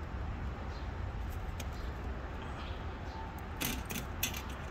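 Steady low wind rumble on the microphone, with two sharp clicks about three and a half seconds in and again half a second later as a rider panel is hooked onto a metal yard-sign frame.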